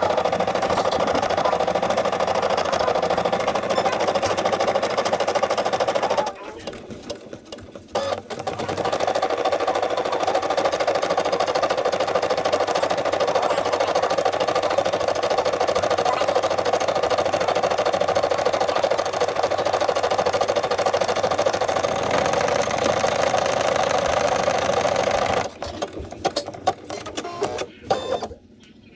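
Brother SE600 embroidery machine running, its needle stitching steadily through the hooped fabric as the embroidery arm moves the hoop. The stitching stops for about two seconds about a quarter of the way in, and again near the end.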